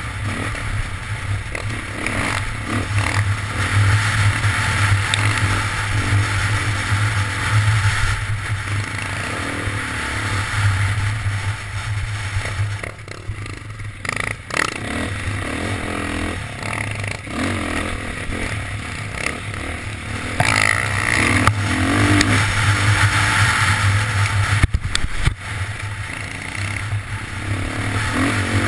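Dirt bike engine running on a singletrack trail, with the throttle varying. The engine drops briefly about halfway through and again a few seconds before the end.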